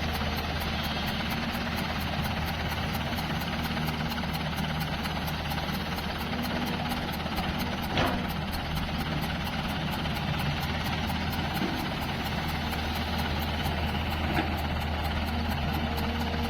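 Diesel engine of heavy machinery running steadily at a low hum, with a single sharp knock about halfway through and a fainter one near the end.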